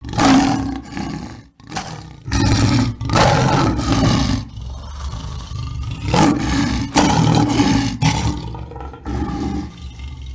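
A run of loud animal roars, each a second or two long, with a quieter stretch about halfway through, laid over the opening titles as a sound effect.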